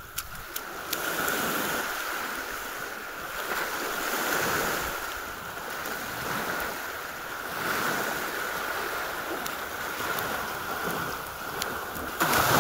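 Sea waves washing in and drawing back, the rush of water swelling and fading every two to three seconds.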